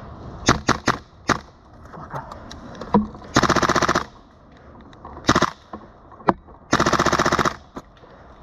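Airsoft gas-blowback submachine gun, the HPA-powered Tokyo Marui MP7, firing: a few quick single shots, then two short full-auto bursts of under a second each, with a couple of single cracks between them.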